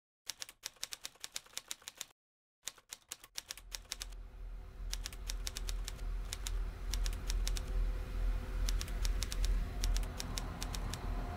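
Typewriter key-click sound effect: rapid runs of sharp clicks in several bursts, one for each line of title text being typed out. From about four seconds in, a low steady rumble of platform ambience runs beneath the clicks.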